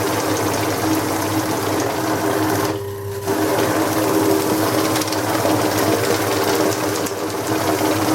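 Banknote counting machine running at high speed: a steady motor hum under a rapid, dense flicking of notes being fed through. The flicking drops out for about half a second roughly three seconds in while the motor keeps running.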